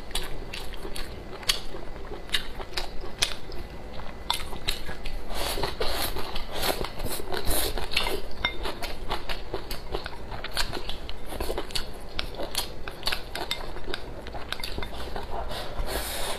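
Wooden chopsticks clicking and scraping against a ceramic rice bowl as rice is shovelled into the mouth, with close-up eating sounds; many quick sharp clicks throughout.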